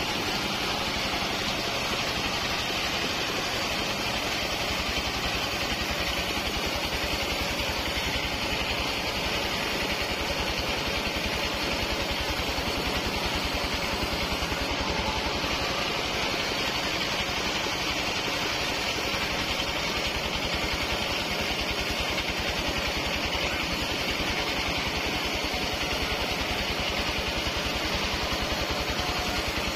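Portable band sawmill running steadily, its engine and band blade sawing lengthwise through a waru (sea hibiscus) log.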